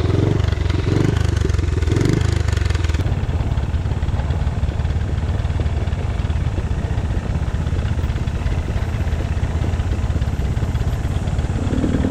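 Dirt bike engine running steadily on a trail ride, with a high hiss over it for the first three seconds that then stops.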